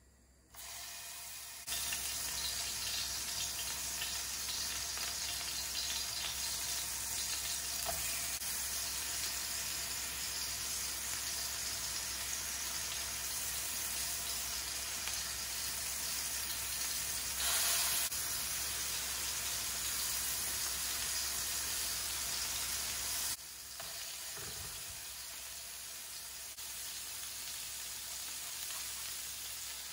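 Raw beef mince burger patties sizzling in hot oil in a frying pan. The sizzle starts about half a second in and grows louder as more patties are laid in, with a brief louder flare a little past halfway, then eases slightly about three-quarters through.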